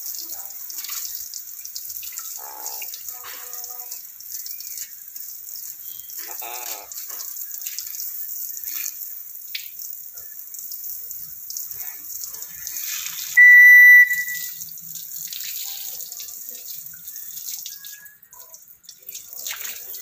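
Black-capped lory giving short, wavering chattering calls, then one loud, shrill, steady-pitched whistle about two-thirds of the way through, over a steady hiss.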